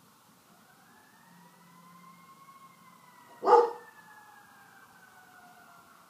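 Faint fire truck siren wailing, its pitch rising slowly and then falling. About three and a half seconds in, one short, loud sound cuts in and is the loudest thing heard.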